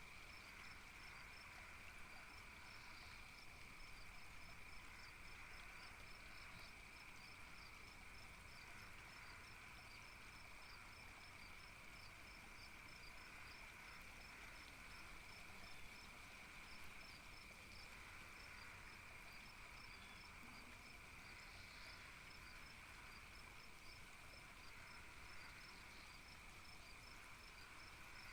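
Faint night ambience: crickets chirping in a fast, even pulse over a steady high insect hum and a soft background hiss.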